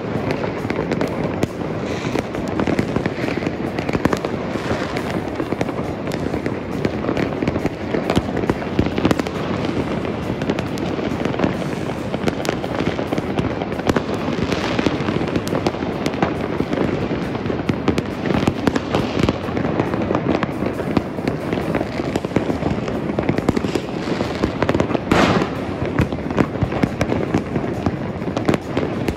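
Many fireworks and firecrackers going off across a city at once: a dense, unbroken crackle of bangs and pops from all sides, with one sharper bang about 25 seconds in.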